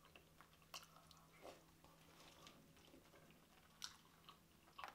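A person chewing seafood-boil food, faint, with a few soft wet mouth clicks, the sharpest about four seconds in.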